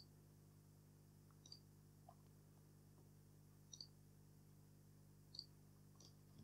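A handful of faint computer mouse clicks, spread a second or so apart, over near silence with a low steady hum.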